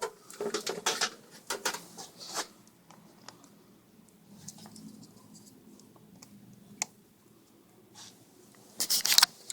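Handling noise as a 10-amp battery charger is hooked up to a car battery: scraping and clicking of cables and clamps over the first couple of seconds, a few light ticks, then a quick cluster of sharp clicks near the end.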